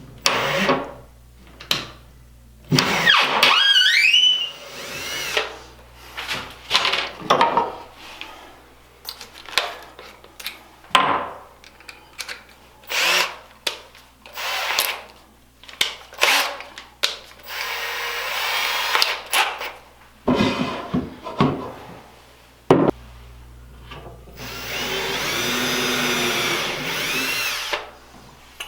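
Power drill driving small square-drive finish screws into an MDF shelf panel. It runs in many short bursts, with a rising whine early on and two longer runs in the second half. The screws go in without pilot holes and are splitting the MDF.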